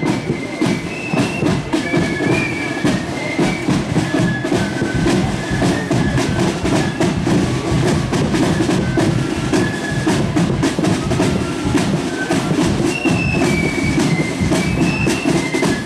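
Marching flute band playing: a high flute melody of short held notes over a steady beat of snare and bass drums.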